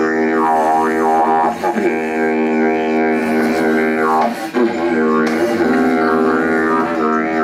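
Two wooden didgeridoos droning together, a steady low drone whose tone sweeps up and down in vowel-like wah sounds, dipping briefly twice.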